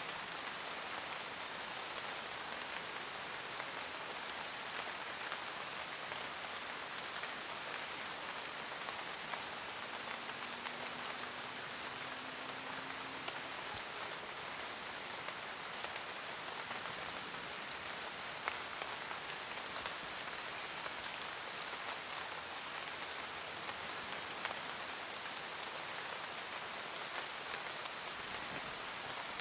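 Steady rain falling in a forest: an even hiss of rainfall with many individual drops ticking on leaves.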